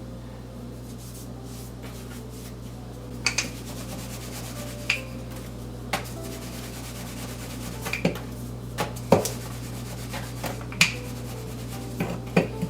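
Rolling pin rolling out a ball of paratha dough on a board: a soft rubbing with a scattering of light knocks and taps, over a steady low hum.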